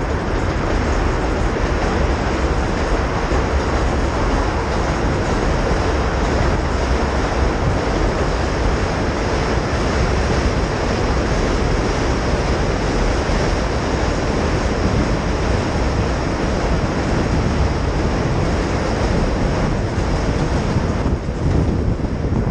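Steady rumble of a subway train crossing the Williamsburg Bridge on the tracks beside the path, mixed with wind rushing over a helmet-mounted camera microphone while riding.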